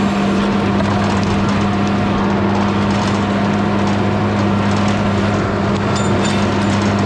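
Mini skid steer's small engine running at a steady speed, a lower hum joining about half a second in.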